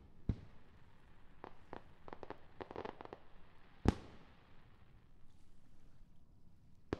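Aerial fireworks shells bursting in the distance: a sharp bang just after the start, a run of smaller cracks, then the loudest bang about four seconds in and another near the end.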